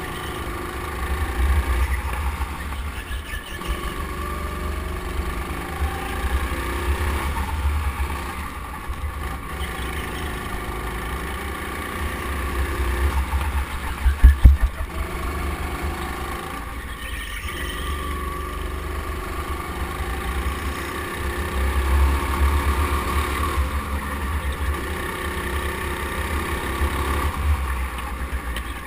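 Go-kart running at speed, heard from on board, with a heavy low rumble under it and a motor pitch that rises and falls through the corners. A few loud knocks come about halfway through.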